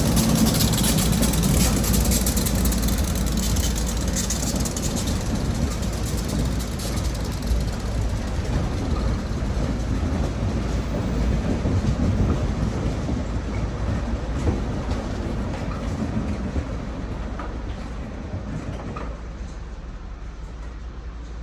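Train passing on a rail line: a steady rumble with wheel-on-rail noise that gradually fades as it moves away.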